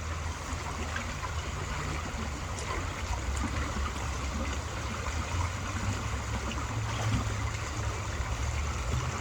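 Creek water rushing steadily over rocks at a small rapid: an even hiss of running water with a low rumble underneath.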